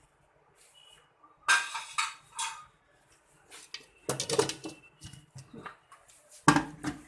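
Kitchen utensils clattering: a spoon and dishes knocking and clinking together in three short bursts, about a second and a half in, around four seconds, and near the end.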